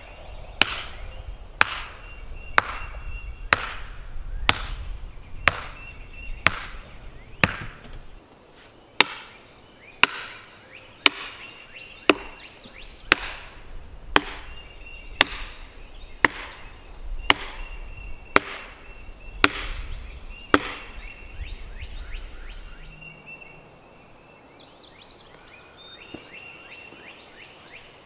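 Axe chopping into a log with steady strokes about once a second, some twenty in all, with a short pause about eight seconds in and stopping about twenty-one seconds in. Birds chirp faintly in the background.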